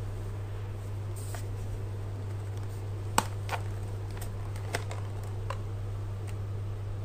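Several sharp plastic clicks and knocks from a Khind VC9678 handheld cordless vacuum as its dust tank release button is pressed and the clear plastic dust tank is pulled off the body. The loudest click comes a little over three seconds in, the rest follow over the next two seconds, all over a steady low hum.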